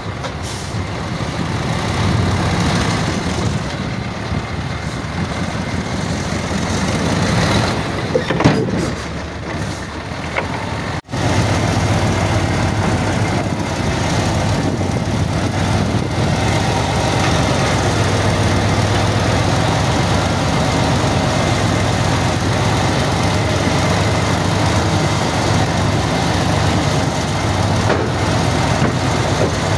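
Heavy diesel earthmoving equipment running steadily under load, a deep continuous engine drone. There are a few knocks about eight seconds in, and the sound drops out for an instant about eleven seconds in before carrying on.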